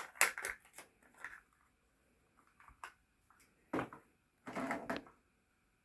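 Handling noise from a new ink cartridge and its plastic packaging: scattered clicks and short crinkling rustles, with the longest rustle about four to five seconds in.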